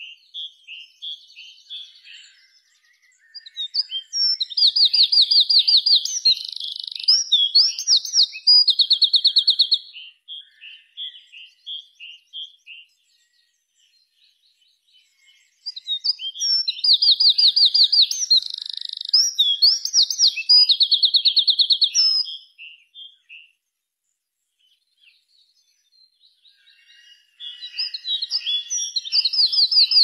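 Wren singing: three loud song bouts of several seconds each, starting about four seconds in, about sixteen seconds in and near the end, each built of fast rattling trills and quick notes, with softer scattered notes between the bouts.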